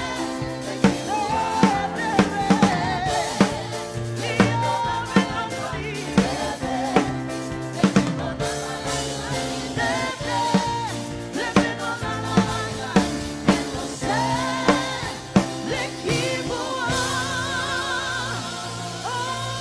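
Live worship band playing with singing and a drum kit keeping a steady beat; about 17 seconds in the drums stop and sustained wavering tones carry on alone.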